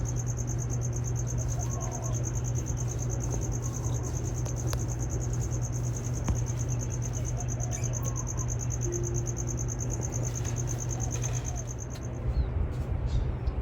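Continuous high, rapidly pulsing insect trill, cricket-like, that stops abruptly about twelve seconds in, over a steady low hum.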